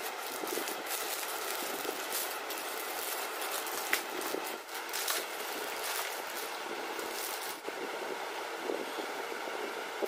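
Plastic packaging crinkling and rustling as a dress is handled and unwrapped, in short crackles over a steady background hiss.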